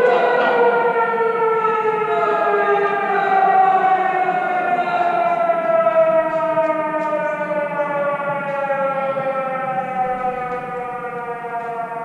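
Air-raid siren sounding one long wail whose pitch slowly falls throughout, fading toward the end.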